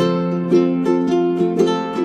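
Background music: a light plucked-string tune, notes picked at a steady pace of about three a second.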